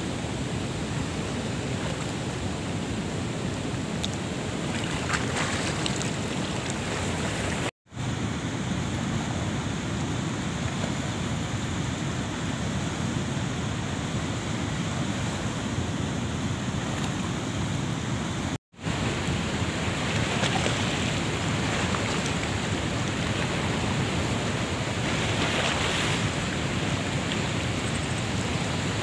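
Steady rush of fast-flowing river water, with wind on the microphone. The sound drops out suddenly for an instant twice, about 8 and 19 seconds in.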